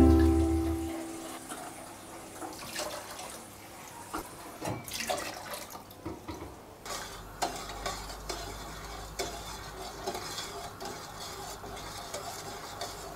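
Light scattered clinks and scrapes of a metal spoon against an enamel pot as sugar and water are stirred together for baklava syrup. Background music fades out about a second in.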